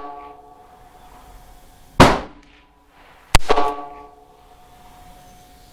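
Two gunshots from a Ruger LCR .22 LR revolver firing #12 lead shot shells, about a second and a half apart. The second is followed by a metallic ring that fades over about a second.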